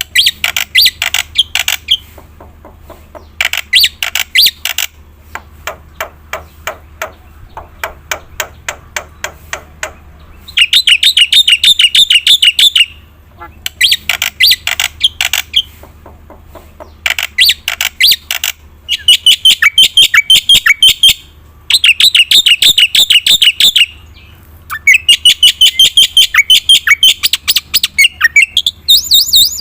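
Black-winged myna (jalak putih) singing loudly. It starts with groups of quick, sharp repeated notes, and from about a third of the way in it gives dense, rapid trilled phrases of about two seconds each, separated by short pauses.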